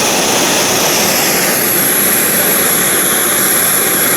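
Ozark Trail 4-in-1 camp stove's gas burner running wide open, a steady hiss of flame. A thin high whine comes in about a second and a half in.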